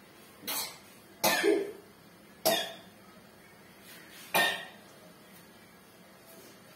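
A person coughing four times in short, sharp coughs over about four seconds.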